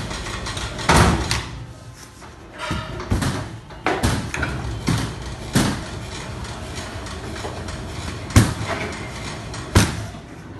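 Sinmag SM-520S tabletop dough sheeter running with a steady low hum, broken by irregular sharp knocks and thumps about one to two seconds apart as dough is worked through the rollers and the machine is handled. The loudest knock comes about two thirds of the way through.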